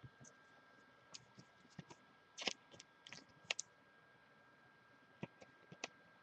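Faint, scattered clicks and light scratches of baseball trading cards being handled, with the loudest clicks about two and a half and three and a half seconds in.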